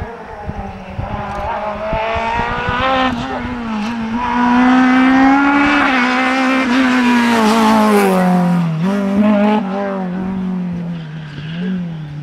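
Renault Clio Maxi rally car's 2.0-litre four-cylinder engine at high revs. It climbs in pitch and then drops sharply several times as it works through the gears, and is loudest as the car passes, about halfway through.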